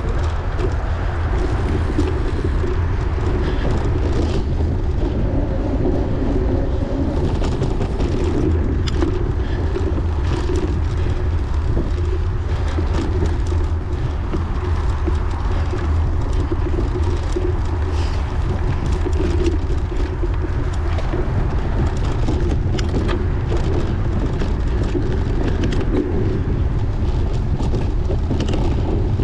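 Wind rumbling steadily on the microphone of a racing bicycle at speed, with frequent clicks and rattles from the bike over rough ground.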